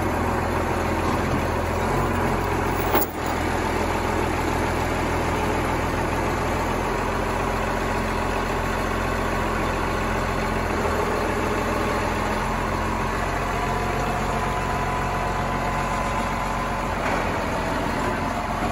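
Case IH MX120 tractor's diesel engine running steadily at low revs as the tractor drives slowly along a lowboy trailer deck and down its ramp, with a single sharp knock about three seconds in.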